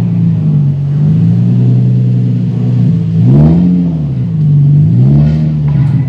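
Nissan 350Z's 3.5-litre V6 exhaust running at low revs as the car reverses, with two short throttle blips, the pitch rising and falling about three and a half seconds in and again about five seconds in.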